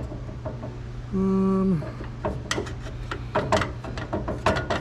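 Hand ratchet wrench clicking in irregular bursts as bolts are worked loose on an interior panel of a 1961 Cadillac, with metal rattles. About a second in there is a short steady hum that drops in pitch as it stops.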